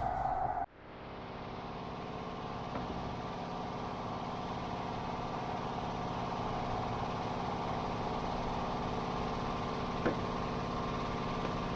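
Steady mechanical hum of running machinery, holding one unchanging pitch, with a faint click about ten seconds in.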